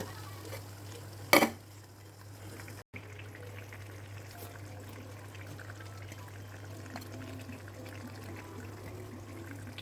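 Liquid pouring and bubbling in a cooking pan over a steady low hum, with one sharp knock about a second and a half in.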